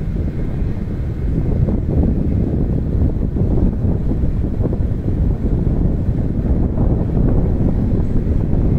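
Wind buffeting the microphone: a loud, steady low rumble that flutters constantly, with no separate bangs standing out.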